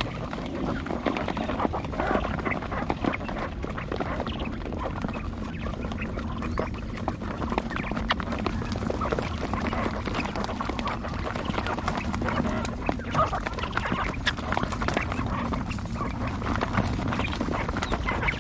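A flock of quail calling continuously, with many short overlapping calls and clicks and no pauses.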